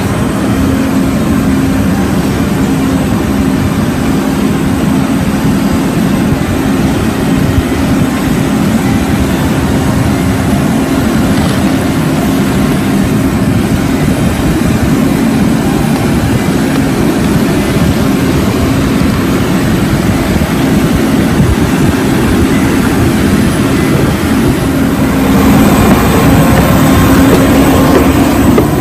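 Loud, steady drone of aircraft engine noise on an airport apron, with a low hum and a broad rushing noise. It swells and turns hissier near the end.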